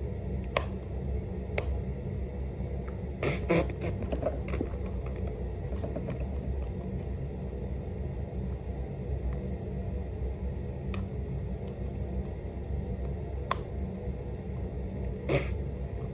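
Eyeliner packaging handled and tugged at while being opened, giving a few scattered sharp clicks and crinkles, a small cluster about three seconds in, over a steady low rumble.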